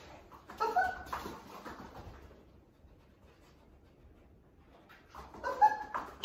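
A trainer's vocal 'pop-pop' interrupter cue: a short pitched two-note call, given twice, about half a second in and again near the end. It is the conditioned sound that tells the dog to stop what it is doing and come back for a treat.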